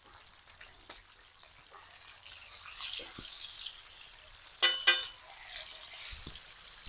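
Small river fish frying in hot oil in a large iron karahi: a steady high sizzle that grows louder about a third of the way in. Two short ringing sounds come close together about two-thirds through.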